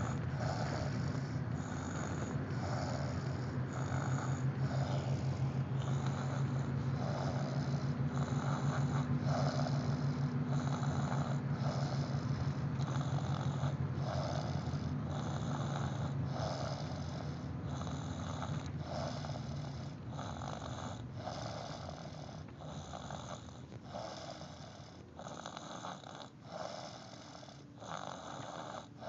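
Young child snoring in quick, regular breaths while asleep. A steady low hum runs underneath and fades out about two-thirds of the way through.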